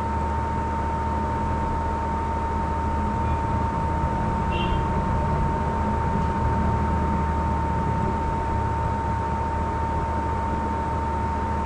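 Steady background hiss and low electrical hum with a constant thin high whine, and nothing else changing.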